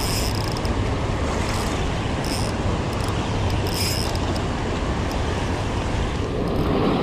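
Steady rush of fast water through a dam spillway. Over it, four short high-pitched buzzes, the last about four seconds in: the drag of a 2023 Daiwa Saltiga 4000XH spinning reel slipping as a hooked fish pulls line.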